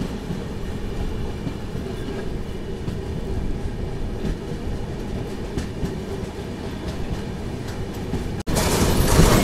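Brindavan Express passenger train running on the track, heard from inside a coach: a steady rumble of the wheels with a few faint clicks from the rails. Near the end the sound abruptly turns louder and fuller.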